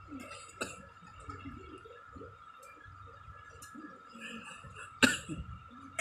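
Clicks and knocks from hands working on a washing machine's plastic top and control panel, with one small click about half a second in and a loud sudden sharp sound about five seconds in, over a faint steady high tone.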